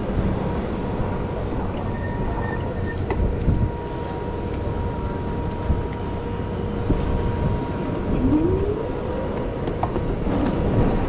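Road and traffic noise of a downtown street heard from a moving e-bike, a steady low rumble with faint steady tones. About eight seconds in there is a short rising whine.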